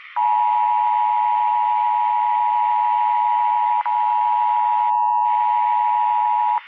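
Emergency Alert System attention signal: a steady two-note electronic tone over a hiss of static, with a brief break a little past halfway. It cuts off abruptly near the end.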